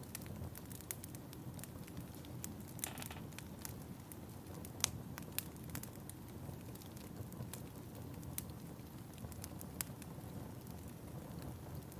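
Wood fire crackling in a fireplace: a steady low rush with irregular sharp pops, and a brief rustle about three seconds in.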